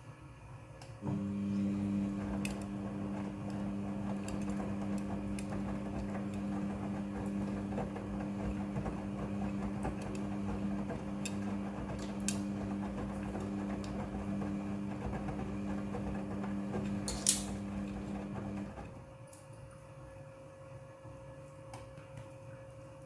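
Midea front-loading washing machine running mid-cycle: its motor starts about a second in, hums steadily and cuts out near the end, with a sharp click shortly before it stops.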